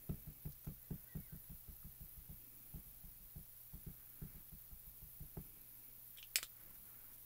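A small ink cube pad dabbed again and again against a clear stamp on an acrylic block: a quick run of soft taps that thins out and stops. Near the end comes a single sharp plastic click as the pad goes back into its lid.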